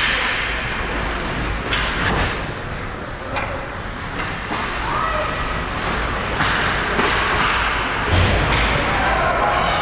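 Ice hockey play heard at rink level beside the goal: a steady hiss of skates on the ice, with sticks and puck knocking and a few thuds, loudest about eight seconds in. Faint shouts from players carry through the arena.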